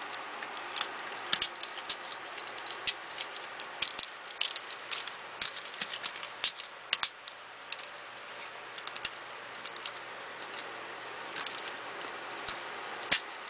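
Plastic clicks and light rattles of a Hasbro Generation 1 Transformers Sandstorm toy as its parts are twisted, swung and snapped into place by hand during the change from helicopter to robot mode. The clicks come irregularly, thinning out for a few seconds past the middle, then picking up again near the end.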